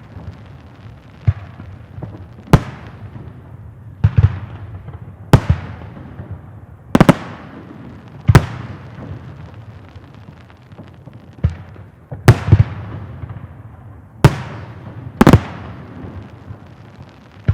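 Fireworks salute: about a dozen loud bangs of bursting shells, spaced irregularly about a second apart, some in quick pairs, each followed by a fading echo.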